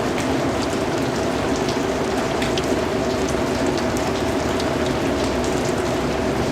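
Steady rain falling, with individual drops pattering on a surface over an even hiss.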